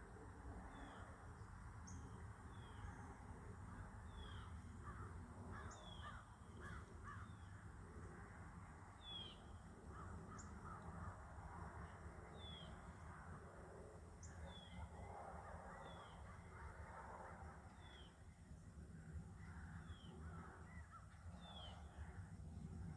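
Faint birdsong: a short descending chirp repeated every second or two, with other bird calls mixed in.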